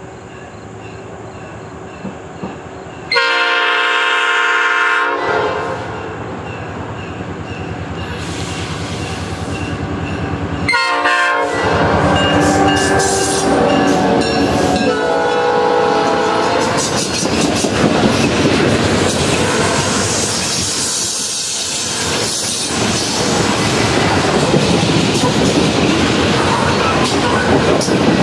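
Norfolk Southern coal train led by an EMD GP38-2 and an SD40-2 diesel locomotive sounding its horn: a long chord blast a few seconds in, then more blasts around the middle as it draws close. The locomotives then pass, followed by loaded coal hoppers, their wheels clicking steadily over the rail joints.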